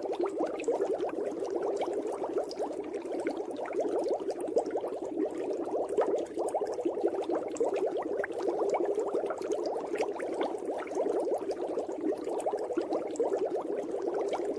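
Steady underwater bubbling: a dense stream of small bubbles crackling and popping without a break.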